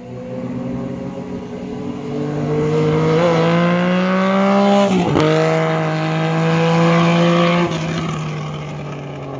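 A motor engine revving up, its pitch climbing steadily, then dropping sharply about five seconds in and running on steady before fading out.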